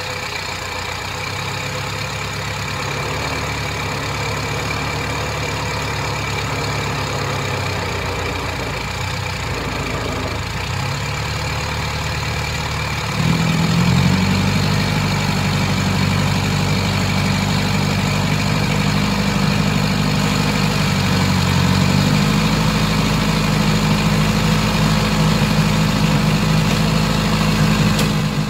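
Toyota Land Cruiser hardtop's engine running at a steady idle. About halfway through it steps up to a higher, louder steady speed, and near the end it rises a little higher again.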